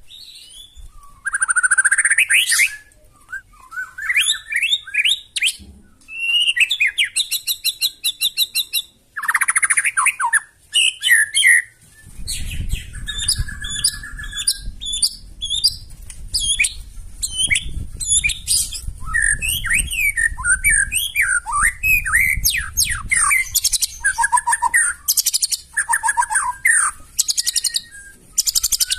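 White-rumped shama (murai batu) singing a fast, varied song of whistled glides, rapid trills and harsh chattering phrases, one phrase after another with hardly a pause.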